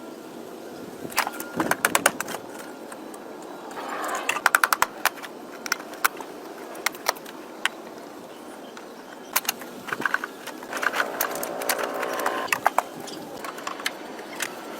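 Irregular clusters of sharp clicks and taps from hand work on the car, several quick strikes at a time, over a steady low hiss.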